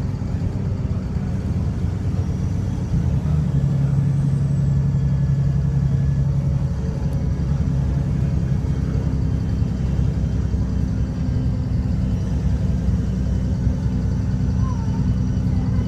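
Diesel engine of a VDL SB200 Wright Pulsar single-deck bus pulling at speed, heard from inside the saloon, with a blown exhaust; the steady drone and road noise gain a strong deep hum about three seconds in that drops away about seven seconds in.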